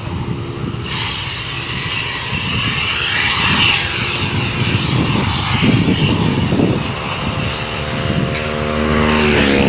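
Airplane's engines running loud, with a steady rushing noise that builds about a second in as the aircraft passes at full speed. A lower, pitched engine hum joins near the end.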